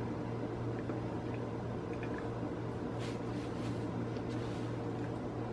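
Quiet room tone: a steady low hum under a faint even hiss, with a few faint soft ticks about three to four seconds in.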